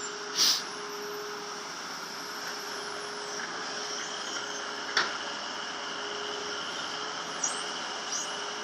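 Excavator running steadily while dredging, with a sharp knock about half a second in and two lighter ones later.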